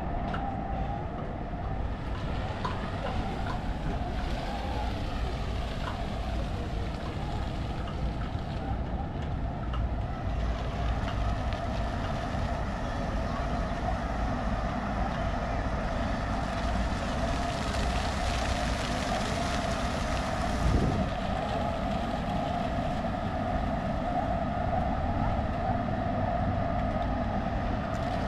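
A steady mechanical drone with a low rumble, holding one pitch throughout, and a single short thud about three quarters of the way through.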